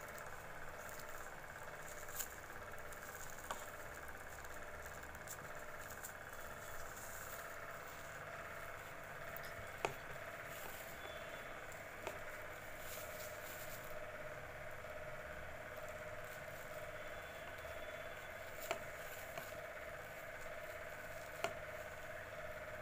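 Soft rustling and crinkling of plastic-bag strips being worked with a crochet hook, with a few light clicks spread through it. A steady faint hum runs underneath.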